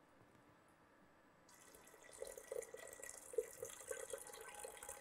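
Water poured from a glass jug into a pressure cooker holding soaked whole urad dal, splashing and trickling steadily. It starts about a second and a half in.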